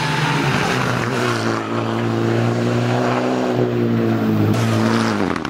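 Mitsubishi Lancer Evolution X rally car's turbocharged four-cylinder engine running hard at near-steady high revs as the car drives through the stage. The note cuts off just before the end.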